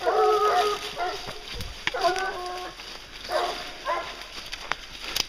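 Pack of briquet scent hounds baying while working a wild boar's trail, in repeated bursts of short calls. Brush rustles underneath as the handler pushes through the undergrowth.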